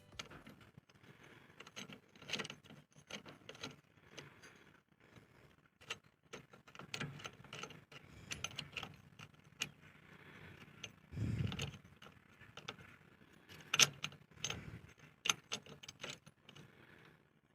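Intermittent small metallic clicks and clinks, as of hand tools and steel parts being handled. There is a duller knock about eleven seconds in and a sharper click a couple of seconds later.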